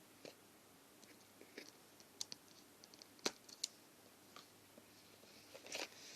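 Scattered light clicks and taps from handling a smartphone's retail box and its contents, with a brief rustle of packaging near the end.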